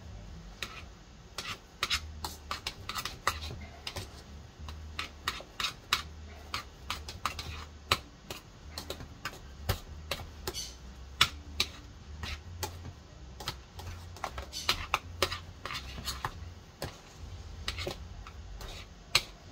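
A spoon clicking and scraping against a stainless steel saucepan as mashed potato is mixed, in quick, irregular taps over a low steady hum.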